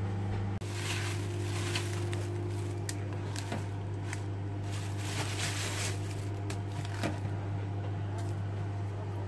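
Microwave oven running with a steady low hum, while handfuls of fresh spinach leaves are rustled and moved about in a glass bowl.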